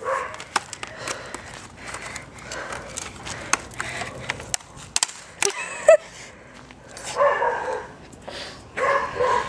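Computer keyboard being bashed and broken: irregular plastic clacks and knocks of the case and keys, with the sharpest hit a little before six seconds in.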